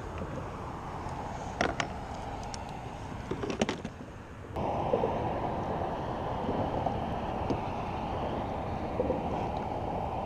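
Steady wind and water noise around a fishing kayak, with a few sharp clicks from handling gear in the first half. About halfway through the noise jumps suddenly to a louder, duller wind noise on the microphone.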